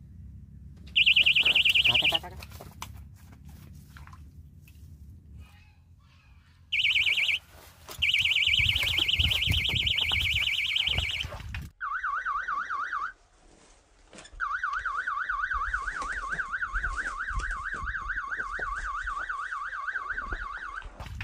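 Electronic fishing bite alarms sounding a warbling, siren-like beep, the signal that a fish has taken a bait. A high warbling tone comes in short bursts in the first half, then a lower warbling tone runs for most of the second half.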